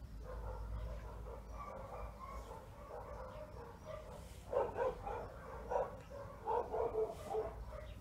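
Short pitched animal calls, several in quick succession about halfway through, over a low steady hum.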